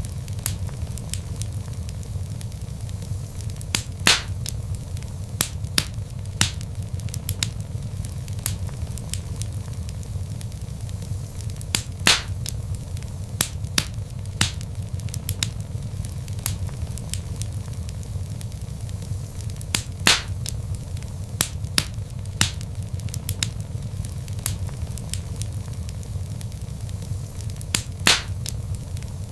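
Log fire crackling: a steady low rumble of burning with constant small crackles and a few louder, sharper pops about every eight seconds.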